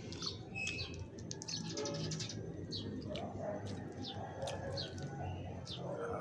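Small birds chirping: short, high, falling chirps repeated about once or twice a second, over a low steady hum.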